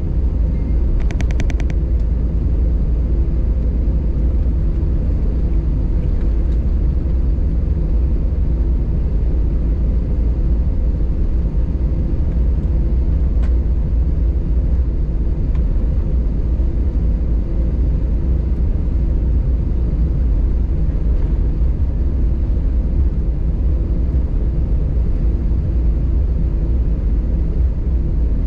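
Steady low rumble inside the cabin of an Airbus A320 taxiing after landing, its engines at taxi idle, with a steady hum over it. A brief high-pitched buzz sounds about a second in.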